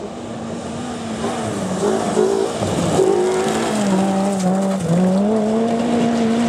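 Peugeot 206 rally car's engine coming into a tight gravel bend. It drops in pitch about two and a half seconds in, then revs up again as the car slides past and pulls away, with a brief dip near five seconds at a gear change. Gravel clatters from the tyres as it passes.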